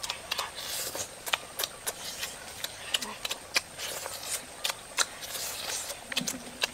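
Close-up eating sounds: wet lip-smacking, slurping and chewing as two people eat soft food by hand, irregular sharp smacks several times a second, with a short hummed 'mm' twice.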